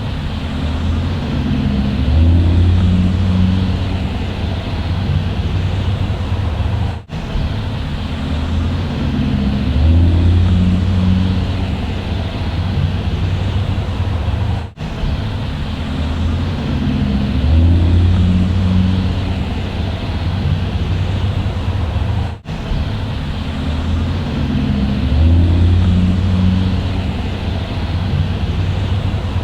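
Bus engine running, its low note swelling and easing back in a cycle that repeats about every seven and a half seconds, with a brief dropout at each repeat.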